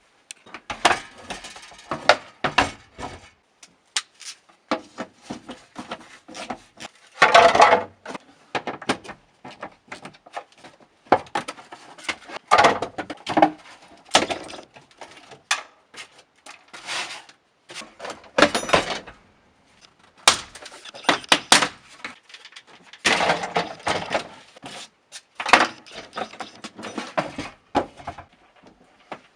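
Irregular knocks, scrapes and clatter of hand work on a car's bare floor pan. The sounds come in short uneven bursts with sharp clicks between them, and no steady machine sound underneath.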